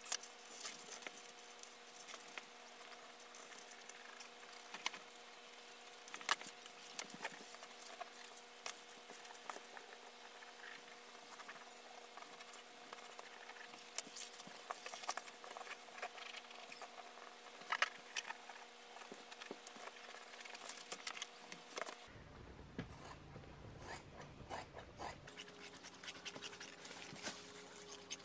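Irregular scratching and tapping of a marker tracing around an old seat cover onto a leather hide, with the leather rustling as it is shifted, over a faint steady hum. Near the end, quicker even snips of shears cutting the leather.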